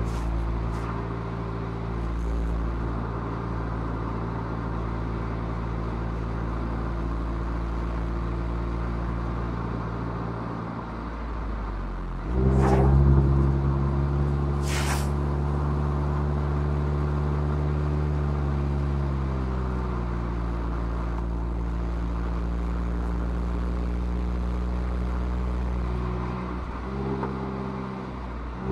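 Mazda MX-5's four-cylinder engine through its stock exhaust, pulling steadily uphill. About twelve seconds in the engine note jumps louder under more throttle and eases off again around twenty seconds. Near the end it dips briefly and comes back higher-pitched.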